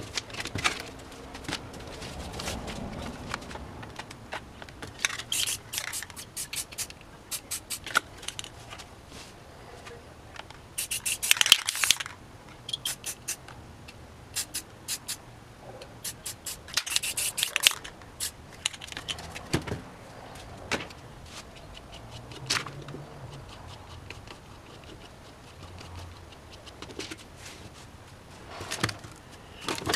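Aerosol spray paint hissing in two short bursts, one near the middle and another a few seconds later, as black is sprayed along the edge of a paper mask. Around them, paper rustling and many sharp clicks and rattles from handling the paper and cans.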